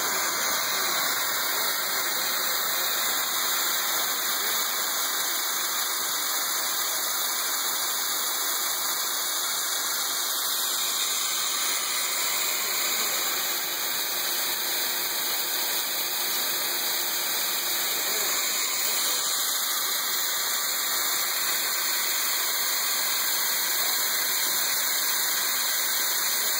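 BOKO RS1V-E vertical milling machine running under power, its end mill cutting along the edge of a metal block: a steady, even machining noise with no breaks.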